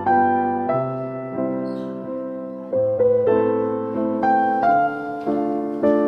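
Background piano music: single notes struck one after another in an unhurried melody over held low bass notes.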